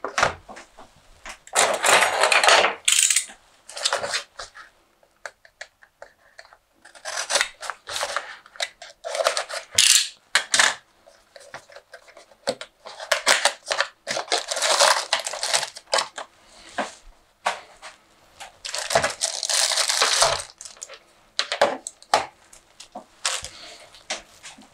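A small cardboard box being opened by hand and a computer mouse unpacked from it. Bursts of cardboard and packaging rustling and scraping, about a second or two each, come with small clicks and knocks in between.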